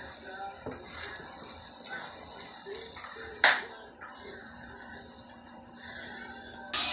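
Wooden spatula stirring and scraping a thick cooking mixture in an aluminium wok, with soft clicks and a light sizzle. There is a sharp knock of the spatula on the pan about halfway in, and another loud one at the very end.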